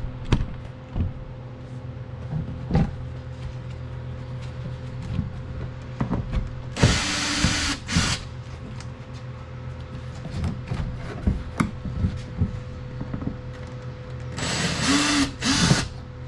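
Cordless power drill/driver spinning in two short runs of about a second each, its motor pitch rising and falling, driving screws or bolts. Scattered knocks and clicks of tools and parts being handled come between the runs.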